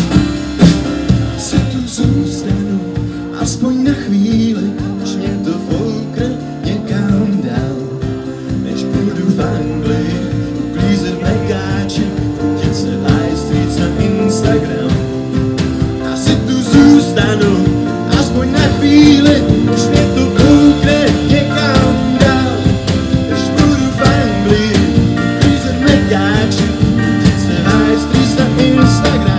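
Live band playing: acoustic guitar, electric bass, a Nord Piano 3 stage piano and a Sonor drum kit, with a man singing mainly in the second half.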